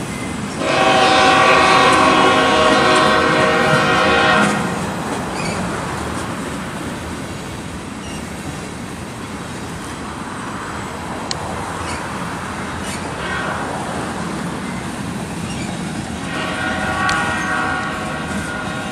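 Diesel locomotive air horn sounding a loud chord for about four seconds, then a shorter, quieter blast near the end, over the steady rolling noise and clatter of a freight train of flatcars passing.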